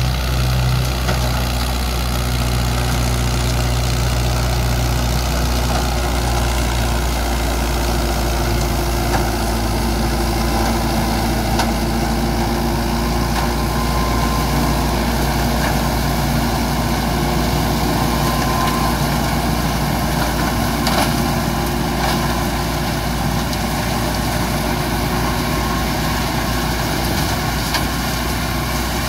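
Hindustan 60 tractor's diesel engine running steadily under load as it pulls a tractor-driven rotary implement through dry crop stubble.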